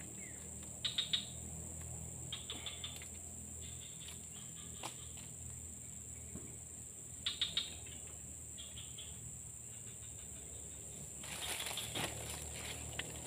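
Steady high-pitched insect drone, with a few short bursts of rapid clicks and some rustling near the end.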